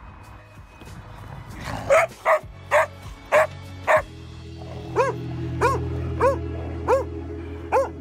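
A dog barking repeatedly in play: a run of short sharp barks about two a second in the first half, then higher, rising-and-falling barks about every half second. Soft background music comes in under the barking about halfway through.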